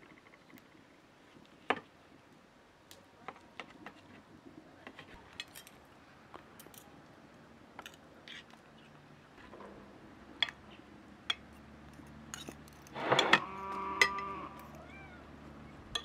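Knife, forks and spoons clinking and scraping against ceramic plates and a metal serving dish while stuffed eggplant is cut and served, in short scattered clicks. About 13 seconds in, a louder, drawn-out pitched call, like cattle lowing, rises above the clinking.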